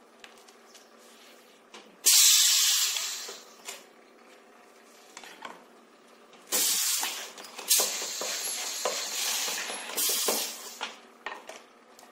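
Air hissing from the pneumatic cylinders of a flap wheel wrapping machine as it cycles. A sharp hiss starts about two seconds in and fades within a second. Longer hissing follows from about six and a half to ten and a half seconds, with a few short metallic clicks near the end.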